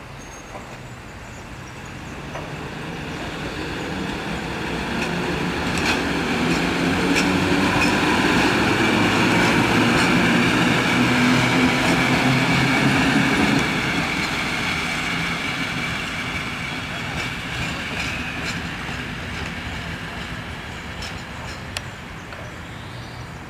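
Electric locomotive passing close by. Its sound swells over several seconds to a steady hum with scattered wheel clicks over the rail joints, then fades away.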